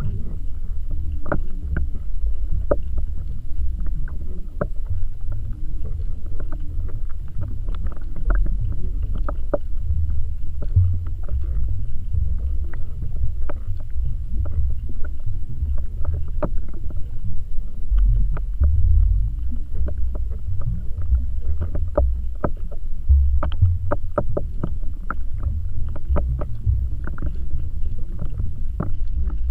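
Underwater rumble of water moving past a camera housing, with many irregular sharp clicks that come more thickly near the end.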